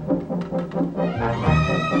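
Background film score: brass over a steady low pulse, with held higher notes coming in near the end.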